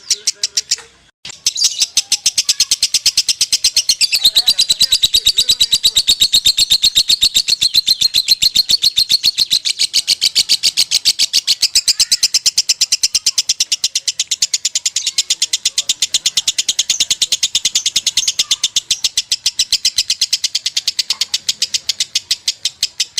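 Lovebird singing a long, unbroken ngekek: a fast, even string of sharp, high chattering notes in the 'konslet' style, with a brief pause about a second in.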